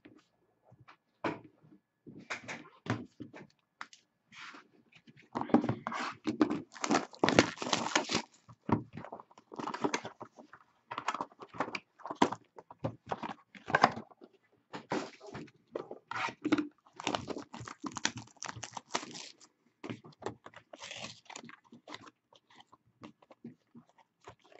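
Crinkling, rustling plastic packaging and trading cards being handled as a hockey card box and pack are opened, with irregular clicks and a denser stretch of crinkling a few seconds in.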